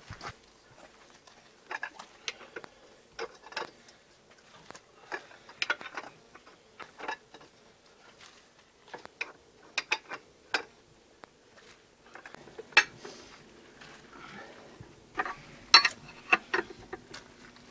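Steel wrenches clinking and clanking on the wheel-hub nuts of a tractor wheel: irregular metallic clicks and knocks as the nuts are worked, the sharpest strikes about 13 and 16 seconds in.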